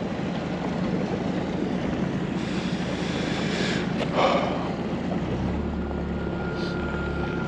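Mercury outboard motor on a Bass Tracker bass boat running under way, mixed with wind rushing over the microphone and water noise. A steady whine comes in about two-thirds of the way through.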